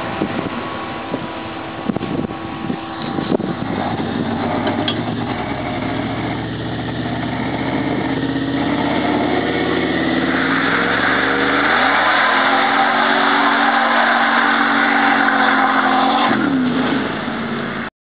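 Turbocharged 5.3-litre V8 in a 1987 GMC pickup revving up for a burnout. About eleven seconds in its pitch climbs sharply and holds at high revs over the hiss of spinning tyres, then falls away near the end.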